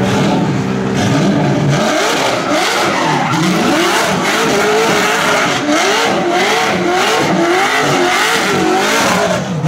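A BMW drift car's engine revving up and down in repeated swells, about every three-quarters of a second, with tyres squealing as it spins donuts.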